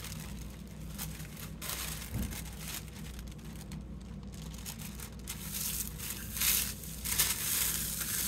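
A sheet of thin artist tissue paper rustling and crinkling as it is handled, laid over a gel printing plate and smoothed down by hand. The louder rustles come near the end.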